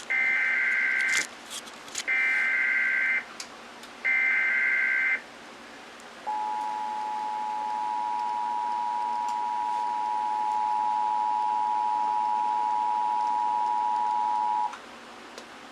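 Emergency Alert System alert: three one-second bursts of SAME digital header data tones, about a second apart, then the EAS two-tone attention signal (853 and 960 Hz together) held steady for about eight seconds before it cuts off.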